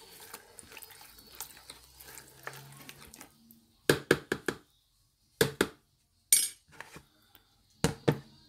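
Chicken being stirred through a thick yogurt-and-masala marinade in a bowl: soft, wet squelching at first. From about four seconds in come four quick clusters of sharp clinks and knocks as the utensil strikes the bowl.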